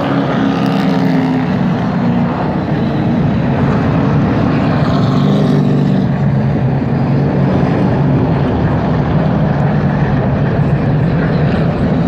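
Several super late model stock cars' V8 engines running together on the track. The drone is steady, held at an even pitch with no sharp revving.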